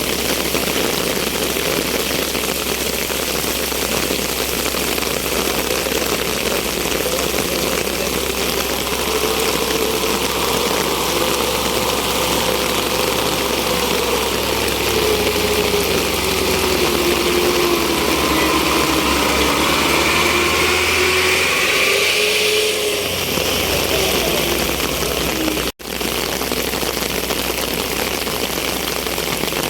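Heavy rain falling steadily, with a vehicle engine running under it whose pitch rises and falls from about a third of the way in until about three-quarters through. The sound cuts out for an instant near the end.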